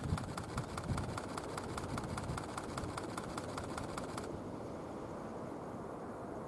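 Low, steady rumble of a distant Airbus A320 jet rolling out on the runway after landing. Over it, a regular ticking about five times a second stops about four seconds in.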